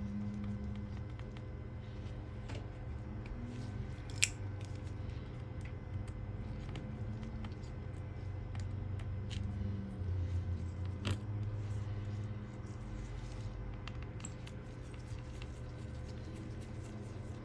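Small clicks, scrapes and crunches of hand tools working on a smartphone during a screen replacement, with a sharper click about four seconds in and another near eleven seconds, over a steady low hum.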